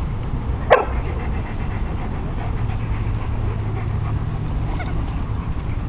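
Dogs scuffling at play, with one short sharp yelp about a second in, over a steady low rumble.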